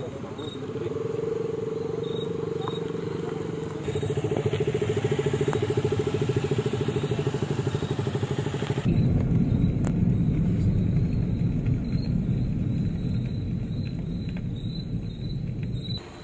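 Motorcycle and scooter engines running close by, with a fast pulsing engine beat taking over about four seconds in. About nine seconds in, the sound changes suddenly to a deeper, steady engine rumble. Insects chirp faintly throughout with short, evenly repeated high notes.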